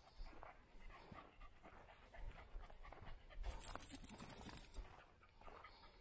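Quick panting breaths over footsteps, with a stronger hissing breath a little past halfway.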